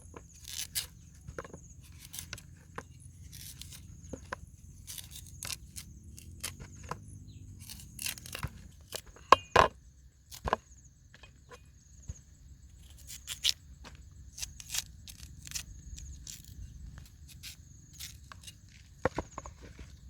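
Irregular clicks, taps and tearing noises of hands handling food, the loudest a little over nine seconds in, over a faint steady high-pitched tone.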